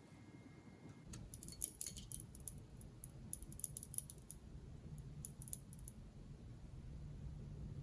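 Small metal pieces jingling and clicking in three short bursts, a dog collar's jingle recreated as foley.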